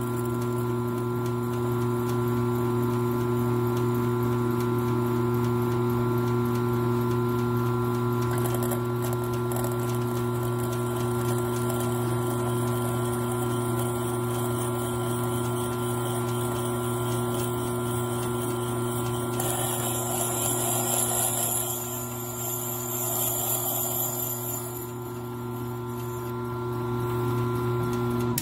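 Old milling machine's electric motor running with a steady hum while a 1/4-inch masonry spade bit drills through the bottom of a ceramic bowl. A rougher grinding of the bit cutting the ceramic joins in about two-thirds of the way through for several seconds, and the motor shuts off at the very end.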